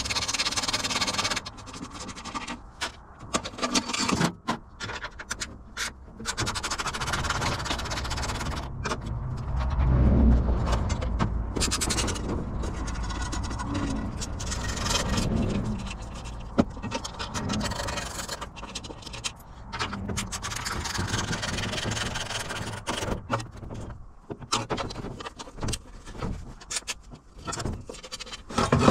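Metal scraping, rubbing and knocking as an aluminium dash panel is pried and worked loose from an off-road buggy's tube frame, with irregular clanks and a dull thud about ten seconds in.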